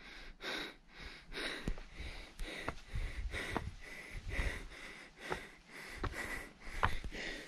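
Hard breathing of a person climbing a hill on foot, a puff of breath about twice a second, with a few sharp clicks.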